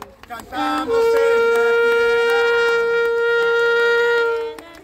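A wind instrument blows one long, steady note for about four seconds. Just before it comes a short lower note, and the held note bends slightly upward as it ends.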